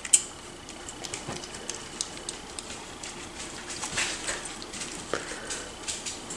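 Miniature schnauzer puppies eating dry kibble from a stainless steel bowl: irregular small clicks and clinks of kibble and teeth against the metal, with one sharp clink just after the start.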